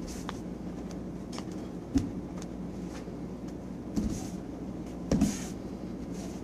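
Bare feet thudding on foam mats during a karate kata, the sharpest thud about two seconds in, with two more thuds and swishes of the cotton uniform near four and five seconds, over a steady room hum.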